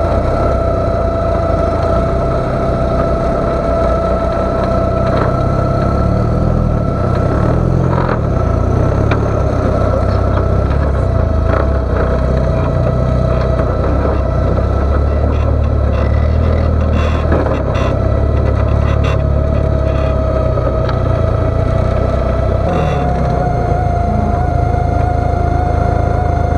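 Ecotec engine of a tube-frame rock crawler buggy running under load, its revs swelling and easing as it crawls, heard close from on board. A steady high whine runs over the engine, with scattered knocks mostly between about 16 and 20 seconds in.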